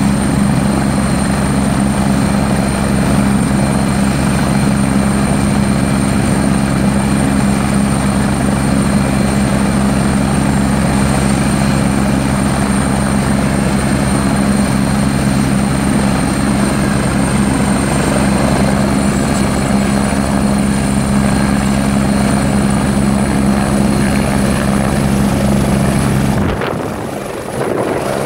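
Air-ambulance helicopter running on the ground with rotor turning: a steady low rotor and engine hum under a high turbine whine. The whine climbs slightly in pitch as power comes up. About 26 seconds in the sound changes and dips briefly as the helicopter lifts off into a hover.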